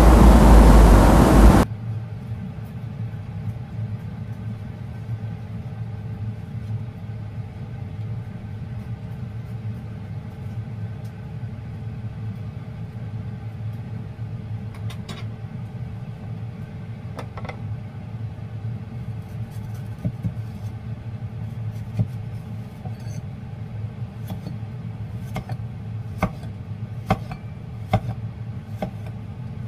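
A louder sound cuts off abruptly about two seconds in, leaving a steady low hum. Over the hum come a few scattered knocks, then, in the last third, a run of sharp knocks from a Chinese cleaver chopping bitter gourd on a wooden chopping block.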